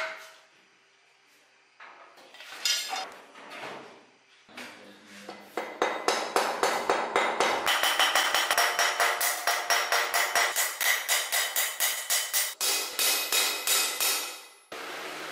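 Small hammer tapping a round steel fitting onto a machete's tang on an anvil: a few separate knocks, then from about six seconds a fast, regular run of light strikes, about four a second, each with a metallic ring.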